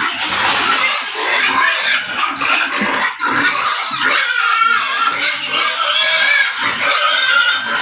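Several pigs calling at once without a break: high, wavering squeals over lower grunts.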